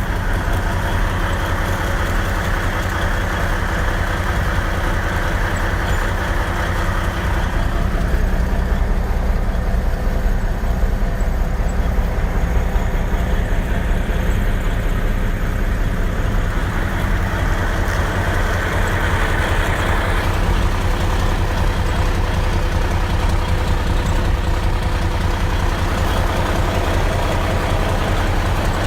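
A police vehicle's engine and road noise while it drives, a steady low drone with a faint hum. A louder hiss rises for a few seconds near the start and again about two-thirds of the way through.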